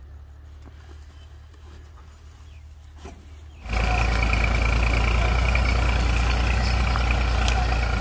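Diesel farm tractor engine. It is a faint low hum with a few light knocks at first, then suddenly becomes loud about three and a half seconds in and runs steadily as the tractor pulls a trolley laden with rice sacks.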